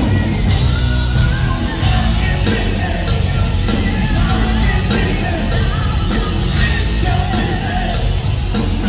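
Hard rock band playing live: electric guitars, bass and drums, with a singer's voice over them.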